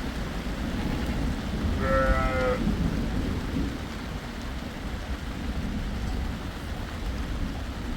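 Steady rain with a low rumbling noise underneath. About two seconds in, one short wavering call from a farm animal.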